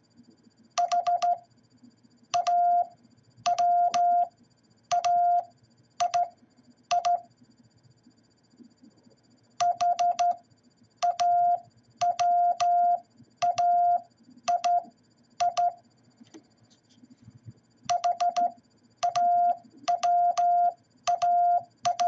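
A Morse code tone of about 700 Hz keyed by hand on a straight telegraph key. It spells HAWAII (.... .- .-- .- .. ..), sent twice in full and a third time up to the final I, with a pause of a couple of seconds between repeats.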